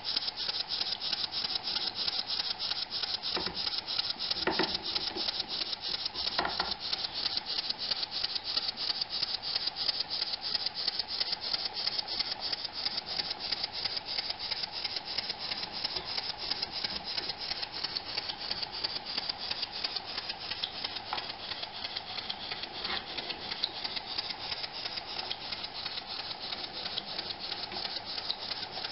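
Model over-crank vertical pumping steam engine running on compressed air at 5 PSI, its mechanism beating in a rapid, even rhythm. A few louder knocks come between about three and seven seconds in.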